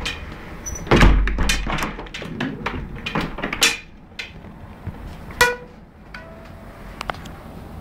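Irregular knocks, clicks and rubbing from handling things on a plastic window frame, with a heavy thud about a second in and a short ringing ping about five and a half seconds in.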